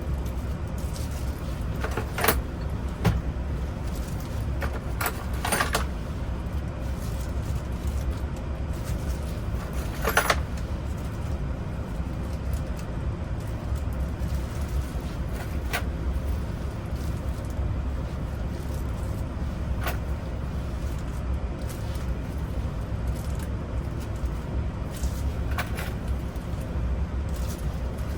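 Small metal clicks and light jingling from ignition lock cylinder wafers and parts being handled: about eight separate clicks, the loudest about ten seconds in, over a steady low rumble like a running vehicle engine.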